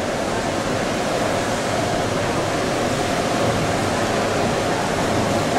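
Steady wash of splashing water from a swimmer's freestyle strokes, echoing around an indoor pool hall.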